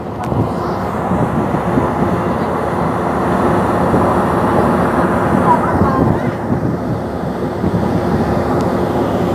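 Steady rumble of a ferry's engines, with wind on the phone microphone.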